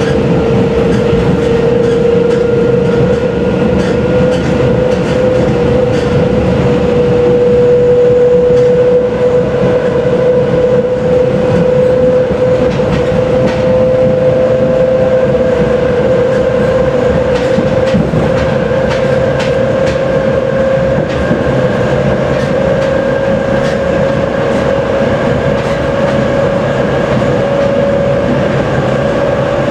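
Running noise inside the passenger compartment of an EN57 electric multiple unit at speed. A steady traction-motor whine climbs slowly in pitch as the train keeps gaining speed, over loud rolling noise and scattered clicks of the wheels over rail joints.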